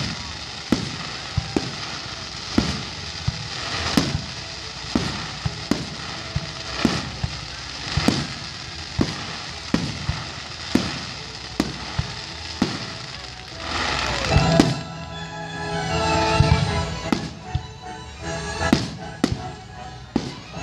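Fireworks display: a quick run of shots and bangs, about two a second, over steady crackling. About two-thirds of the way in the bangs thin out and music with held tones comes in beneath them.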